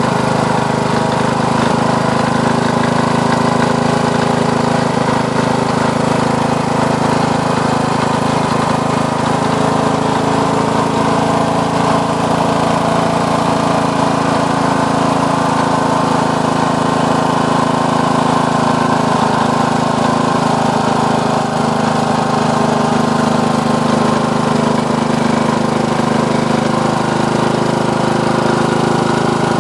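Carver 168 single-cylinder four-stroke engine, with a newly replaced piston, running steadily with no change in speed.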